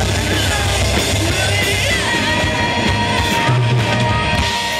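Rock band playing live on stage: drums and amplified instruments, with a long held high note coming in about halfway through.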